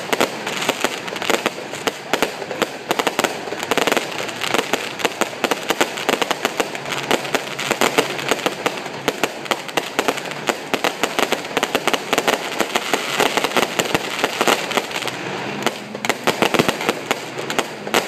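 Fireworks display: aerial shells bursting in a rapid, unbroken run of pops and bangs.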